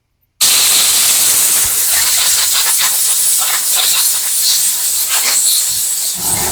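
Compressed air from an air blow gun hissing as it blows out a lawnmower air filter, starting about half a second in. Near the end a low, steady hum starts up: the air compressor's motor running again.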